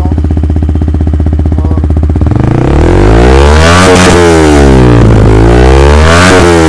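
Yamaha R15M's 155 cc single-cylinder engine breathing through an aftermarket full-system exhaust with an R9 muffler. It idles steadily with an even pulse, then from about two seconds in it is revved up and back down twice.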